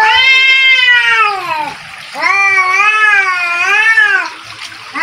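Cats yowling at each other in a standoff, the drawn-out threat yowls of a cat fight about to start. There are two long yowls: the first lasts nearly two seconds, and the second, beginning about two seconds in, wavers up and down in pitch. A third yowl starts at the very end.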